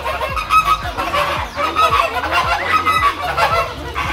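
A flock of flamingos calling: many short honking calls overlapping in a continuous chatter.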